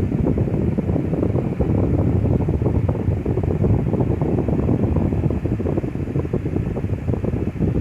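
Lasko 12-inch table fan head running on low speed without oscillating, its airflow blowing across the microphone as a steady, gusty low rush of wind noise.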